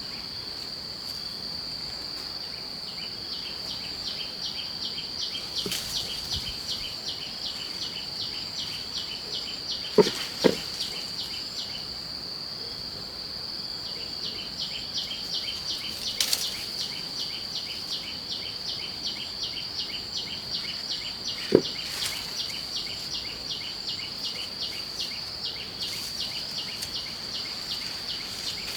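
Insects calling: a steady high-pitched drone with rapid, rhythmic chirping over it that pauses for about two seconds in the middle. A few sharp knocks, two of them close together about ten seconds in.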